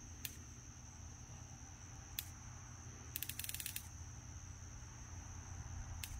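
Steady high-pitched chorus of crickets and other night insects, with a few single sharp clicks and a short rapid run of clicks about three seconds in, over a low steady rumble.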